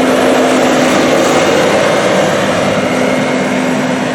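Grain grinder running steadily while grinding feed for calves, a loud constant mechanical hum with no change in pace.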